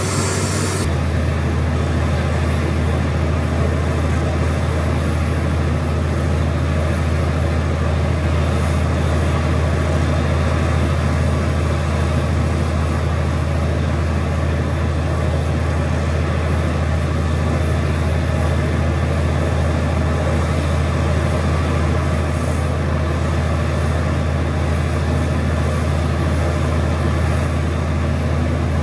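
Borewell drilling rig running at full load: a loud, steady low engine drone with a constant hiss over it. The hiss thins about a second in.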